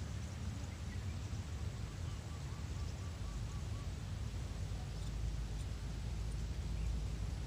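Wind rumbling on the microphone in open country, with a faint call of about eight quick repeated notes a little over two seconds in.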